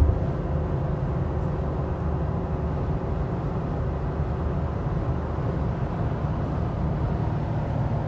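Steady road and engine noise inside a Toyota Tacoma pickup's cabin at highway speed while it tows a travel trailer, with a brief bump at the very start.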